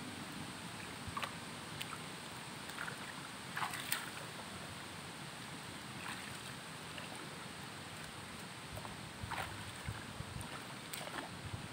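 Steady outdoor hiss with a few brief splashes and swishes of shallow paddy water as a person works among rice seedlings and wades through the flooded field.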